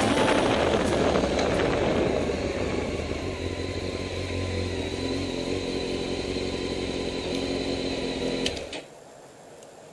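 Motorcycle engine running at low speed, then switched off about eight and a half seconds in, the sound cutting out abruptly with a couple of clicks.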